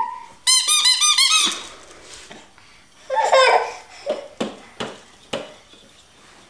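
A quick run of high, squeaky chirps from a baby's activity-saucer toys, about eight in a second, then a few sharp knocks as the hard plastic toys on the tray are struck.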